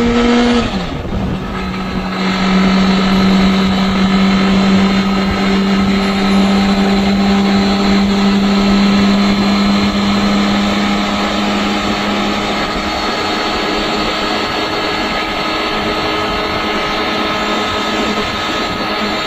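Honda CBR650R's inline-four engine running at a steady pace under riding wind noise. The engine note dips in pitch just under a second in, holds steady, and grows fainter about two thirds of the way through, leaving mostly wind rush.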